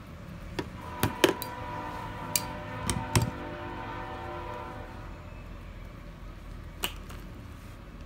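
Pittsburgh 6-1/2 in. self-adjusting wire stripper clicking as its jaws clamp, strip and spring back on a thin oxygen-sensor wire. A quick run of sharp clicks comes in the first few seconds, then a heavier knock about three seconds in as the tool is set down on the bench, and one more click near the end, over a steady hum.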